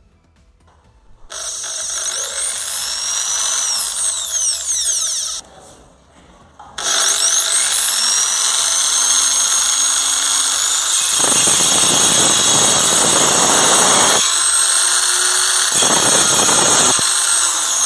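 Corded electric drill spinning a circular saw blade in a homemade table-saw rig. It starts about a second in with a rising whine, stops briefly around five seconds, then starts again and runs steadily. Twice the blade cuts into a strip of wood, a harsh cutting noise lasting about three seconds and then about a second.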